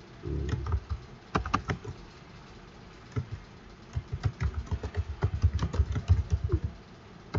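Computer keyboard being typed on: a few scattered keystrokes in the first two seconds, then a quick, steady run of keystrokes over the last three seconds.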